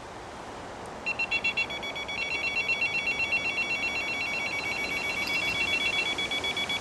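Electronic bite alarm on a catfish rod sounding a fast, warbling two-tone electronic signal, set off as the rod tip is pulled down, which shows the detector registers a bite. It starts about a second in with a few short beeps, breaks briefly, then sounds steadily.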